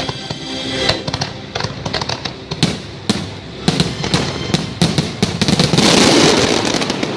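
Fireworks going off in rapid succession over the show's music, with sharp bangs throughout and a dense crackling volley about six seconds in.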